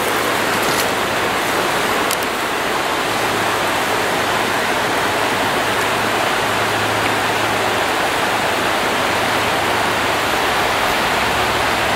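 Shallow, rocky trout stream running: a steady, even rush of water.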